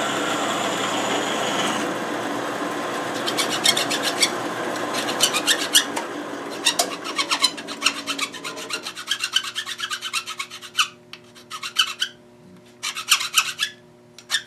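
Hand file rasping along the bandsawn edge of an aluminum C-clamp part in runs of quick strokes with short pauses, filing off the edge that the bottom cut leaves. A bandsaw runs underneath at first: its whine stops about two seconds in, and its noise dies away over the next several seconds.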